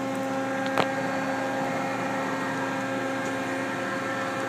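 Mazak QT-20 CNC lathe running under power, a steady hum of several even tones, while its X axis traverses quietly. A short click comes about a second in.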